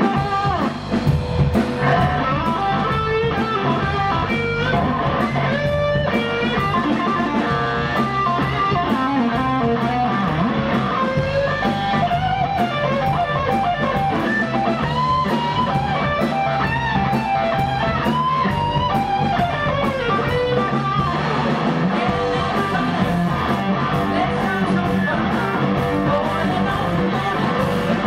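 Live blues-rock band playing: electric guitars, electric bass and a drum kit. A lead guitar line with bent notes runs over a steady cymbal beat.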